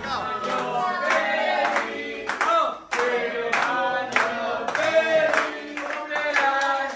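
A group of people singing a birthday song together, clapping along in time.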